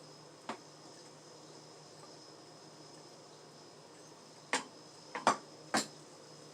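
Sharp clicks and clinks of a utensil against a dish while a serving of food is lifted and plated: one about half a second in, then four close together near the end. A steady faint high-pitched whine runs underneath.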